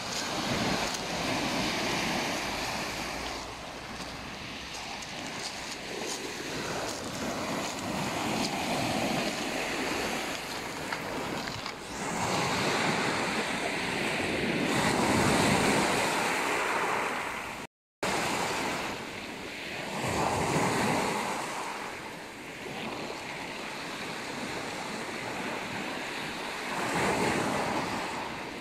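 Black Sea waves breaking and washing up over a pebble beach, the surf swelling and ebbing every few seconds. The sound cuts out briefly about two-thirds of the way through.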